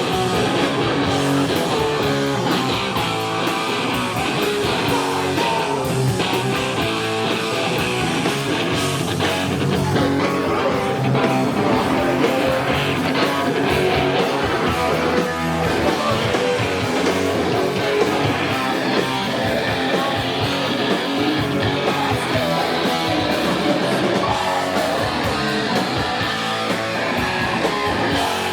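Live rock band playing a song, with loud, steady electric guitars in the lead.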